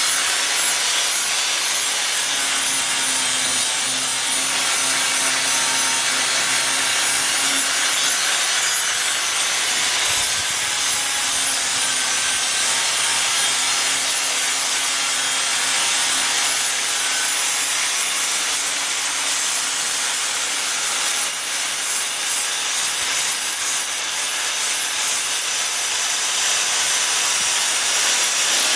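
Grinder grinding down weld seams on a car's steel front body panel: a steady, continuous grinding hiss with a low motor hum underneath.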